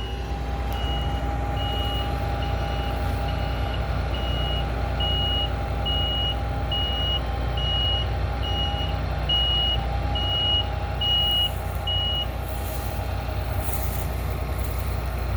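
A farm vehicle's reversing alarm beeping steadily, about twice a second, over a heavy diesel engine running; the beeping stops about twelve seconds in while the engine keeps running.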